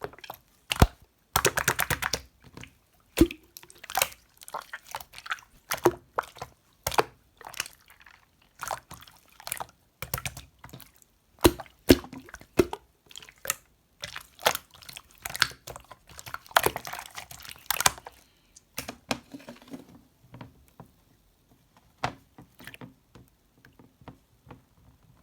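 Slime being squeezed and pressed by hand: irregular wet clicks, pops and squelches, with a couple of longer crackling stretches. The sounds thin out and get quieter near the end.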